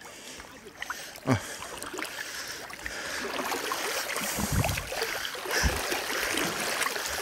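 Splashing and sloshing of shallow marsh water, growing louder after a couple of seconds, with a single short knock about a second in.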